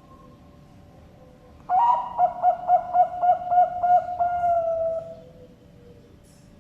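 Zebra dove (perkutut bangkok) cooing one full song phrase. An opening note about two seconds in leads into a quick run of about eight rolling notes at some four a second, then one long drawn-out final note that fades away about five seconds in.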